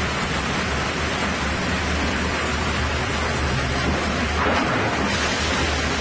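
Sawmill band-saw headrig and log conveyor running as a log is fed into the saw: a steady dense mechanical noise over a low motor hum, a little louder about four and a half seconds in.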